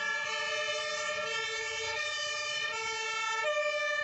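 Electronic two-tone fire-engine siren, a steady rich tone switching between two pitches about once a second.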